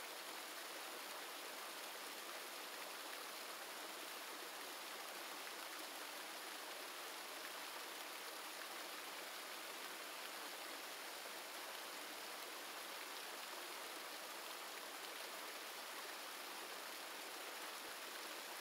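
Steady rush of water pouring from a channel in a wall and splashing into a stone reservoir tank.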